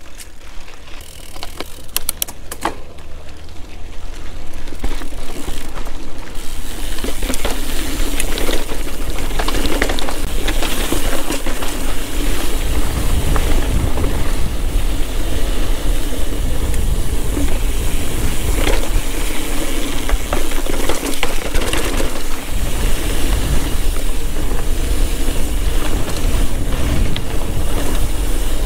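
Mountain bike being ridden on a dirt trail: tyre and trail noise with knocks and rattles from the bike, over a deep rumble. A few sharp clicks come first, then about six seconds in it grows louder and stays steady.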